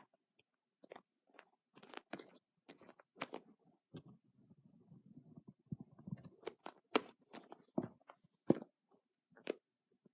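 Slime being squeezed and played with by hand, giving irregular crackles and pops, with a softer low squishing between about four and six seconds in.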